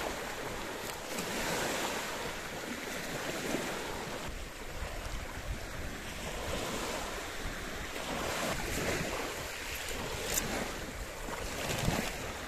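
Small waves breaking and washing up a shallow beach, swelling and easing every second or two, with wind buffeting the microphone.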